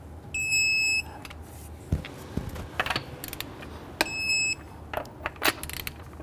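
Digital torque wrench beeping twice, each beep about half a second long, as a lug nut reaches its set torque of 76 ft-lb. Metal clicks of the socket and wrench on the nuts come in between.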